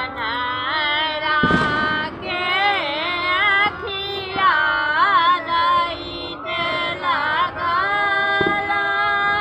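Women's voices singing a devotional Chhath folk song, with long held notes and wavering ornaments.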